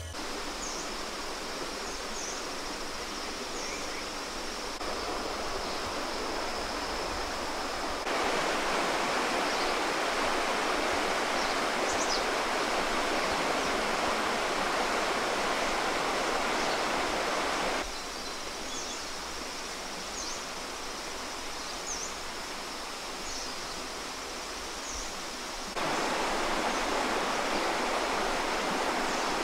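Steady rushing of a rocky forest stream, its level jumping up or down abruptly several times, with a few faint high chirps over it.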